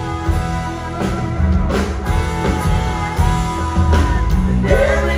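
Live country band playing an instrumental passage of the song, with guitar, bass and drums.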